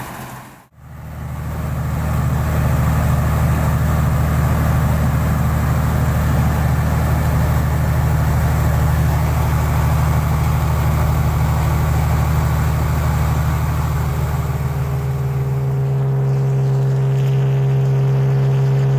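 Engine of a tracked rice combine harvester (NH8070) running steadily with a deep, even note. It cuts out briefly less than a second in, then resumes, and its tone changes slightly near the end.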